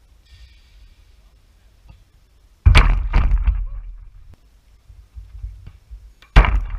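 Football shots hitting the goal, where the camera is fixed to the net: two loud, sharp thumps, one about two and a half seconds in, followed by a quick second knock and a short fading shake, and a louder one near the end as the goalkeeper dives for a shot.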